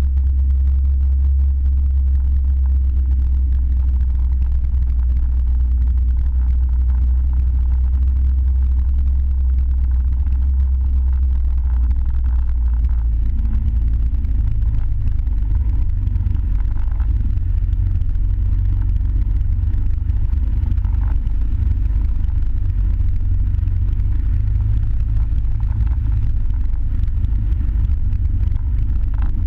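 Land Rover Defender 90 driving on a dirt trail: a loud, steady low drone of engine and drivetrain. About halfway through it becomes rougher and more uneven as the track turns to muddy ruts.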